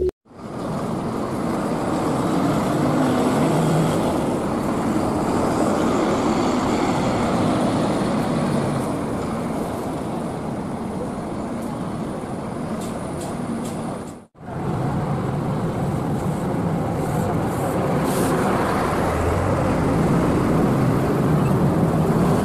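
Coach bus engine running as the bus manoeuvres, over steady outdoor traffic noise. The sound drops out briefly about two-thirds of the way through, then carries on.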